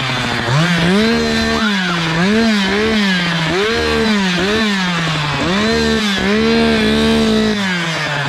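Two-stroke Echo chainsaw engine revved in a series of short blips, about seven, each rising and falling back toward idle, and idling again near the end.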